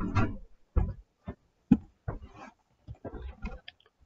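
Irregular dull thumps and clicks of a computer keyboard and mouse in use, carried through the desk to the microphone; the loudest knock comes a little under two seconds in.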